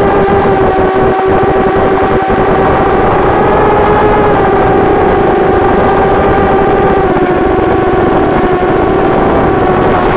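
Moby X4 FPV racing quadcopter's motors and propellers whining steadily at a high pitch, as picked up by its onboard RunCam 2 camera, on a 4S battery. The pitch lifts slightly about four seconds in and sags gently toward the end.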